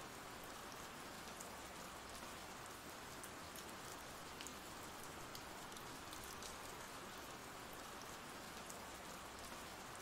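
Ambient rain sound effect: faint, steady rain with scattered drop ticks over an even hiss.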